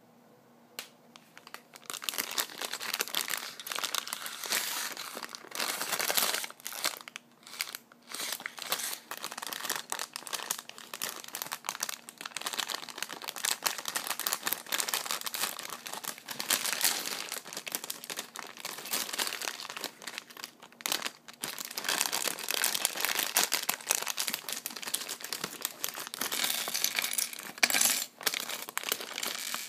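Plastic LEGO polybag crinkling as hands tear it open and pull out its contents, starting about two seconds in, with small clicks of loose plastic bricks among the rustle.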